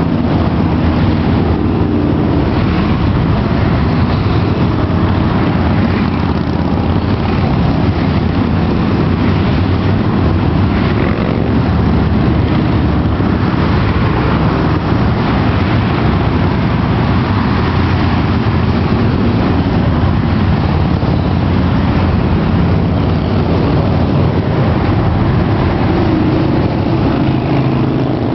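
Steady rumble of tyre and wind noise from a car travelling at highway speed, picked up from inside the moving car.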